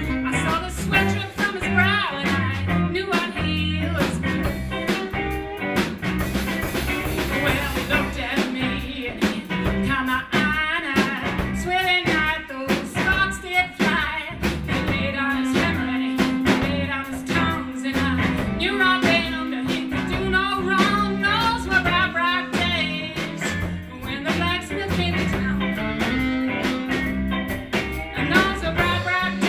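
Live blues band playing: a woman singing over electric guitar, bass and drums with a steady beat.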